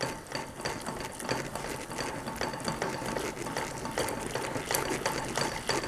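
A whisk beating cornmeal into hot water in an enamelled cast-iron pot, with rapid clicking and scraping against the pot as the polenta is stirred to keep it from lumping.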